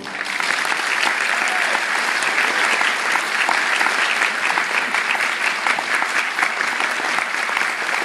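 Theatre audience applauding, a dense, steady clapping that starts as the dance music ends.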